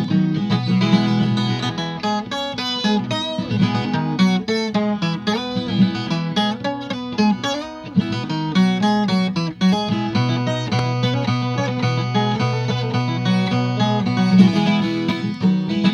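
Brazilian viola caipira, a ten-string steel-strung folk guitar, playing an instrumental passage of quick plucked notes over a steady low bass line.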